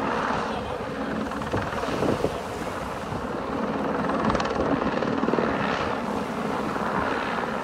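Steady engine drone with an even rumble, mixed with wind and water noise.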